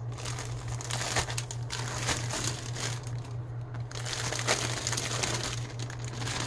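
Clear plastic bag crinkling as it is handled and small bags of diamond painting drills are slid out of it, an irregular crackle over a steady low hum.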